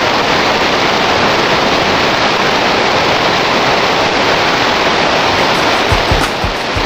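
Fast river rapids rushing over rocks: a steady, loud whitewater noise. A few low thumps come in near the end.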